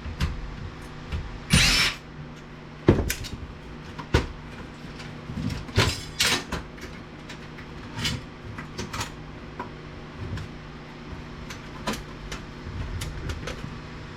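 Scattered knocks, clicks and two short scrapes of a VCR's metal and plastic chassis parts being handled and worked loose by hand.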